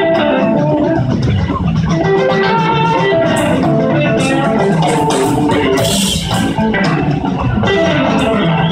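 Live blues-rock band playing: two electric guitars over bass guitar and drums.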